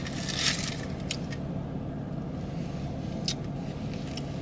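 A few short rustles and crinkles from takeout food and its wrapping being handled while eating, over a steady low hum.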